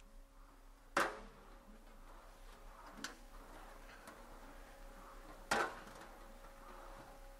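Sheet-metal fender panel being rolled through an English wheel, a quiet rolling with a faint steady hum, broken by two sharp metallic clanks with a brief ring, about a second in and again past the middle, and a lighter tick between them.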